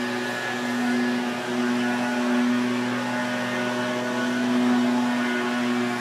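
Outdoor tornado warning siren sounding a steady tone during a test, its loudness swelling and fading every couple of seconds.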